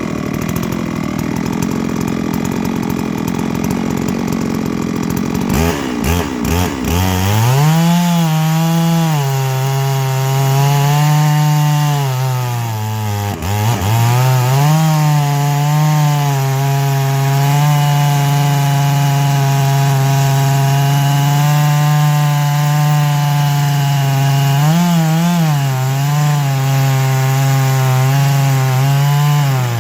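Stihl MS 660 two-stroke chainsaw on a chainsaw mill. It runs rough for the first few seconds, is blipped about six seconds in, then is held at full throttle cutting a slab of black oak. The pitch drops sharply under load once around the middle and wavers again near the end.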